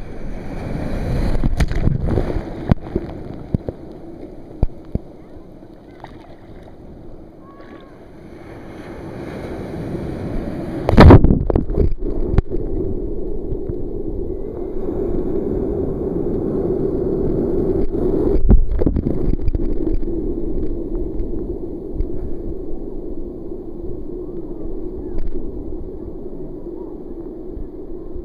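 Ocean surf washing and sloshing around a camera held at water level, with a loud splash about eleven seconds in and a smaller one near eighteen seconds.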